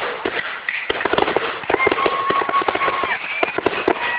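Fireworks finale: a dense, rapid run of bangs and crackles, with a held whistling tone for about a second near the middle.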